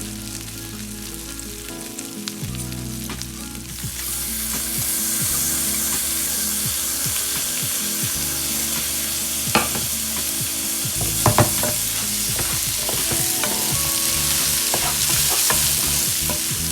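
Food frying in hot oil in a pot, a steady sizzle that gets louder about four seconds in. A spoon scrapes and clinks against the pot a few times as it is stirred.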